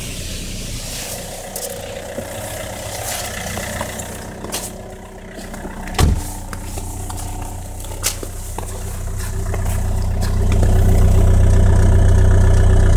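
Opel Y20DTH 2.0 turbo-diesel with over 300,000 km idling steadily just after a cold winter start. There is a single loud thump about six seconds in. From about ten seconds in, the exhaust's low rumble grows much louder as the microphone comes up to the tailpipe.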